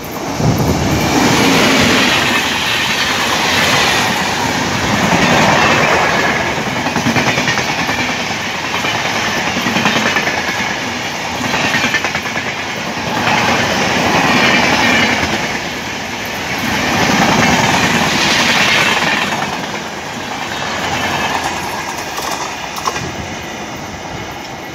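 Express passenger train of LHB coaches passing close at speed: steady rush of wheels on rail with clickety-clack, the loudness swelling and dipping every couple of seconds as the coaches go by, easing off slightly near the end.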